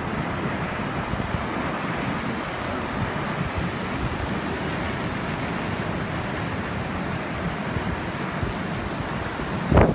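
Steady rush of water pouring over the crest and down the stepped spillway of an overflowing dam, with wind buffeting the microphone. A brief louder thump comes near the end.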